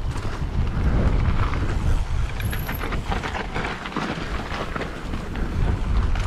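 Mountain bike riding fast down a dirt trail: wind buffets the camera's microphone in a steady low rumble, with tyre noise and a rapid, irregular clatter of the bike rattling over bumps.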